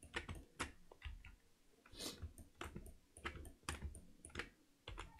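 Faint, irregular clicking of a computer keyboard and mouse: shortcut keystrokes and button clicks, about three a second.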